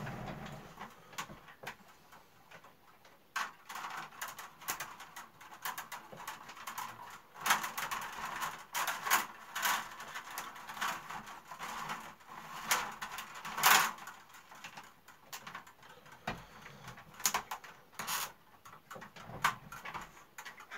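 A thin weaving strip rustling and scraping as it is pulled in and out between the willow stakes of a wicker basket, with irregular light clicks and creaks of the rods. The strip is fresh and supple, so it bends without breaking.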